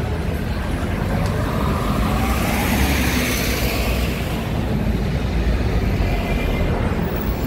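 City street traffic: a motor vehicle drives past, swelling loudest about three seconds in over a steady low rumble of traffic.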